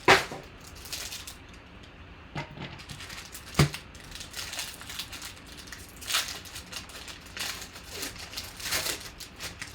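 Crinkling and rustling of trading card packaging and cards being handled, with scattered clicks and one sharp knock about three and a half seconds in.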